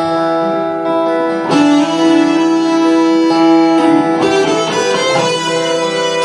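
Live electric guitar playing a lead melody over an acoustic guitar accompaniment. The lead holds one long note, then plays a quicker run of notes about four seconds in.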